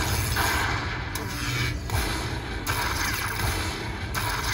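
Lightning Link High Stakes slot machine's win celebration as the win meter counts up after free spins: thunder-like crackling and booming sound effects over a low rumble, in blocks about a second long.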